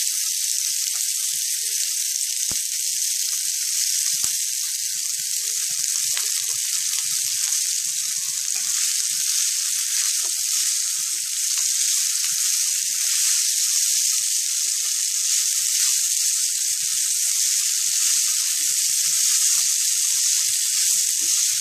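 Hot ghee with cumin seeds and whole spices sizzling steadily in a non-stick frying pan as boiled basmati rice is turned through it with a wooden spatula, with a few faint taps of the spatula.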